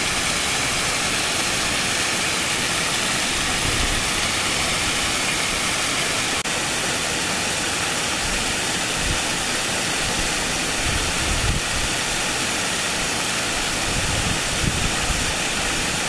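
Water of a small waterfall pouring over stepped rock ledges into a shallow pool: a steady, full rush of falling and splashing water, with a brief break about six seconds in.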